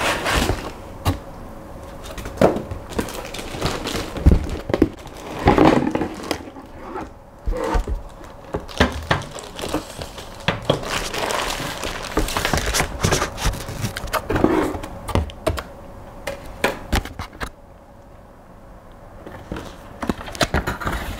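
Unboxing a small 3D printer: cardboard box flaps and foam packing inserts scraping and rustling, a plastic bag crinkling around the printer, and scattered knocks and thunks as things are handled and set down on the table.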